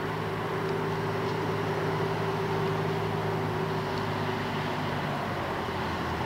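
Diesel-electric rail motor DERM 58RM moving slowly, its engine giving a steady hum of several tones that dies away about five seconds in.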